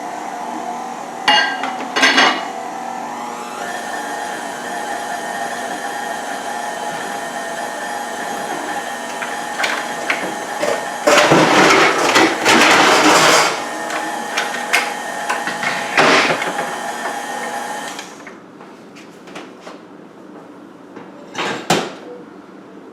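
Electric mixer running steadily, beating cookie dough in a bowl. The beaters clatter loudly against the bowl for a couple of seconds near the middle, and the motor switches off about three-quarters of the way through, followed by a few sharp knocks.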